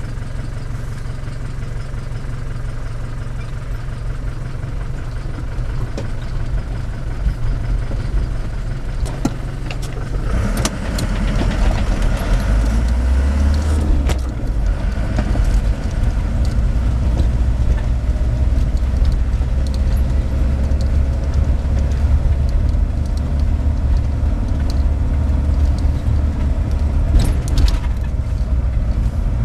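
Vehicle engine and road noise heard from inside the moving vehicle: a steady low rumble that grows louder about ten seconds in, with a few short rattles near the end.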